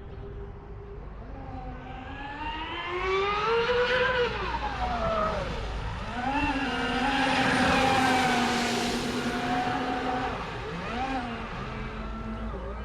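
High-pitched whine of an electric RC speed boat's LMT motors, climbing in pitch as the throttle opens, dipping about five seconds in, then holding high and steady. A rushing hiss is strongest around eight seconds in, and the whine drops away after about ten seconds.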